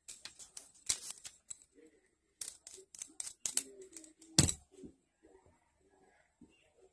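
A small plastic electrical switch being handled: a quick run of sharp clicks, then one heavier knock as it is set down on the table about four and a half seconds in, followed by a few fainter clicks.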